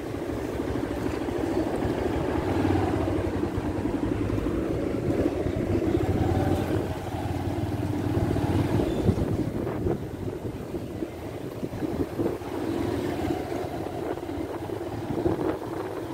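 Motorbike engine running while being ridden along a street, with wind buffeting the microphone.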